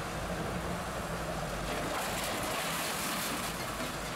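Heavy machinery running steadily at a scrap metal shredding line, a grapple material handler and shredder together, with a low hum underneath. A brighter rushing hiss swells from about two seconds in for a second and a half.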